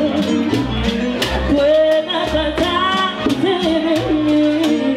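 Live Cuban band music: a woman sings lead over electric bass, violins and hand percussion keeping a steady beat.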